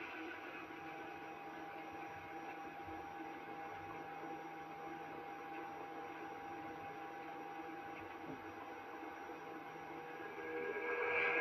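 Candy washing machine running with a steady hum and several steady tones. It gets louder and noisier near the end.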